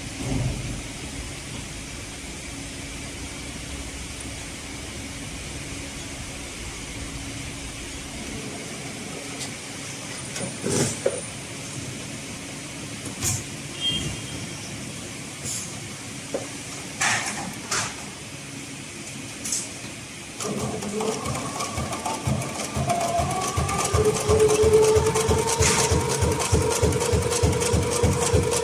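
HighTex 204-370PRO heavy-duty sewing machine for thick thread. For the first two-thirds there is a low steady hum with a few sharp clicks as the material is set under the presser foot. Then the machine starts sewing, with a fast, even stitch-by-stitch knocking and a motor whine that rises and then holds steady.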